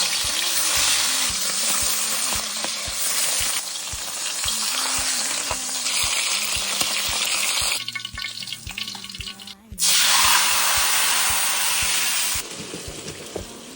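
Crucian carp pan-frying in hot oil, sizzling loudly and steadily. The sizzle drops away about eight seconds in, comes back strongly about two seconds later, and falls quieter near the end.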